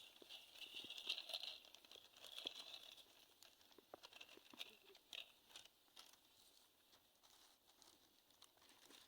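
Near silence: faint scattered crackles and ticks, with a thin high hiss that fades out after about three seconds.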